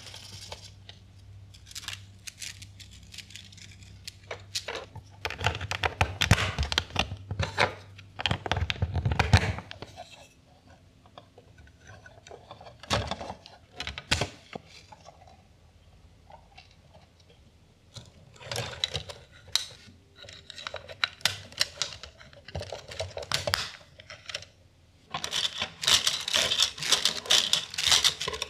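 Plastic LEGO Technic beams and gears clicking, snapping together and rattling as they are handled and assembled, mixed with the rustle and clatter of a plastic rainbow spring toy being stretched and flexed. Irregular sharp clicks, with busier handling noise about a third of the way in and again near the end.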